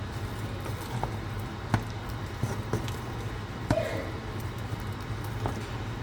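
A few separate light knocks and clicks, like items being handled and set down in a kitchen, over a steady low hum.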